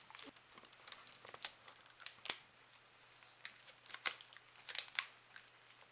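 A Milka Oreo chocolate bar's wrapper being torn open and unwrapped by hand, with irregular crinkling and sharp crackles in clusters and a brief lull about halfway through.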